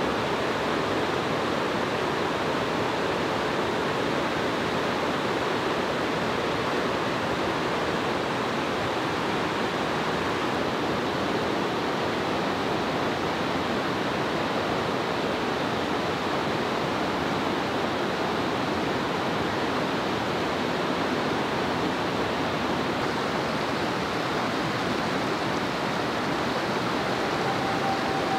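Water rushing steadily over the stepped rock ledges of a mountain creek's cascades.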